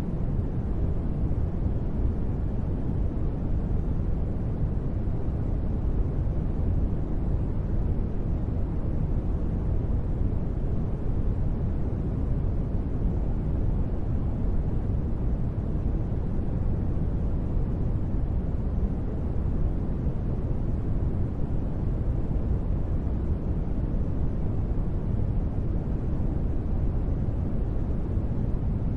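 Steady, unbroken noise bed of a deep-space ambience track, deep and even, with most of its weight in the low end and little hiss on top.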